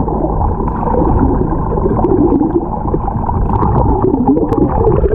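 Muffled underwater sound from a submerged action camera: a steady churning rumble of moving water with bubbling and wavering low tones, all dull, with the higher sounds cut off.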